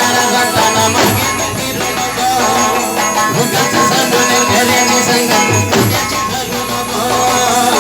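A Marathi band playing music: sustained instrument tones over rattling, shaker-like percussion.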